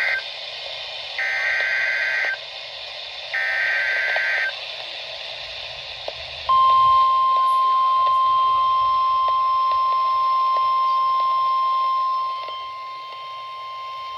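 NOAA Weather Radio emergency alert heard through a receiver: the SAME data header's short two-tone warbling bursts, about a second each and a second apart, then the steady 1050 Hz warning alarm tone starting about six and a half seconds in and holding on, quieter near the end. Together they signal the start of a warning broadcast, here a severe thunderstorm warning.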